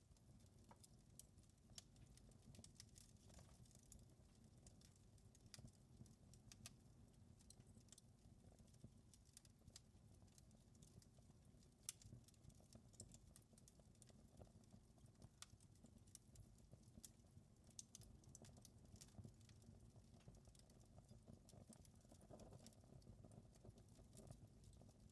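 Wood fire crackling in a fireplace, faint: frequent irregular sharp pops and snaps over a steady low rumble of the flames.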